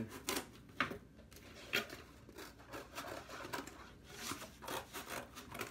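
Scissors cutting through corrugated cardboard: irregular snips and crunches, with the cardboard rustling and scraping between cuts.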